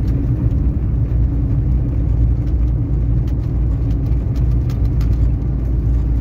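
Car driving along a highway heard from inside the cabin: a steady low engine and tyre rumble, with a few faint ticks over it.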